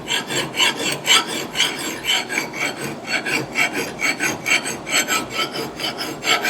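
A vintage Heller Unicut hand file being pushed in short, quick strokes across a steel axe bit, a dry scraping at about three to four strokes a second. The file skates more than it bites, which the filer takes to mean this file is a little dull.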